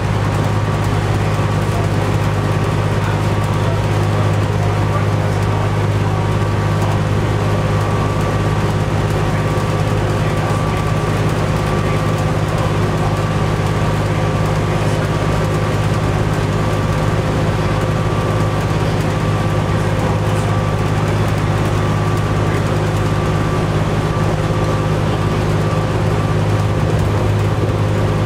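Ride inside a 1998 New Flyer D40LF transit bus moving at a steady speed: its Cummins ISC diesel engine and driveline give a loud, steady low drone under road noise, with a faint steady whine above it and no change in pitch.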